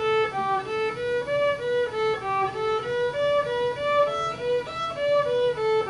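A solo violin playing a quick melody of short, separate notes, about three a second, moving up and down in the middle of its range.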